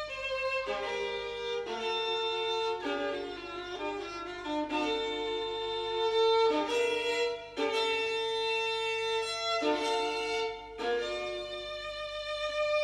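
Violin music: slow, sustained violin notes changing every second or two, over a faint steady low hum.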